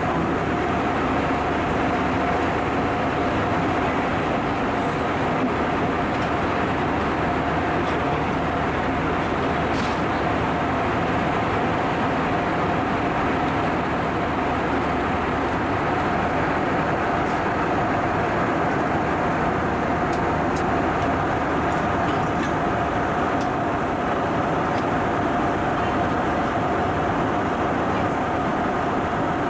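Steady in-flight cabin noise of an Airbus A320-232, engine and airflow noise with a constant hum and no change in level.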